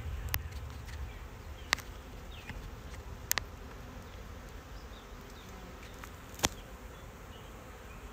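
Faint buzzing of honeybees around an open hive over a low rumble, with four sharp clicks spread through it.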